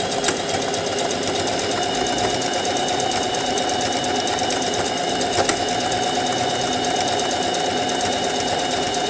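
Singer Facilita Pro household sewing machine running steadily under the foot pedal, stitching a buttonhole with its automatic buttonhole foot.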